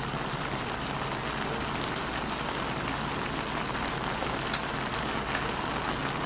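Shrimp masala sauce boiling in a frying pan: steady bubbling and sizzling, with one sharp click about four and a half seconds in.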